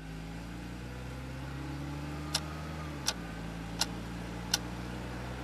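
Car engine running steadily, its hum stepping slightly lower in pitch about three seconds in. Four sharp clicks come evenly spaced, about three quarters of a second apart.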